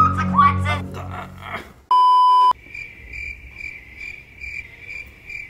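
Music with singing stops about a second and a half in. A short, loud, steady beep comes about two seconds in. Then comes a quieter cricket-chirping sound effect, pulsing two or three times a second, the stock 'awkward silence' crickets.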